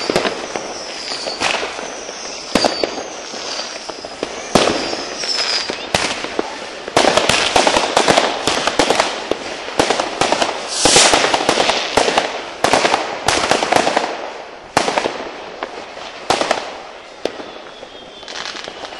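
Fireworks and firecrackers going off. There are sharp bangs with short falling whistles in the first few seconds, then a dense run of rapid bangs and crackling from about seven to fifteen seconds in, which thins out near the end.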